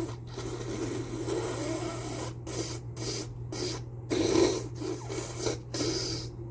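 A person with a cold breathing hard and sniffling in a run of short, noisy bursts, the strongest about four seconds in, in the aftermath of repeated sneezing.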